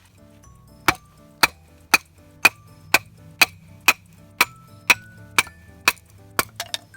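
Firewood being split: a blade struck into a log about twice a second, each hit a sharp, ringing chop, with a quicker flurry of hits near the end. Faint background music.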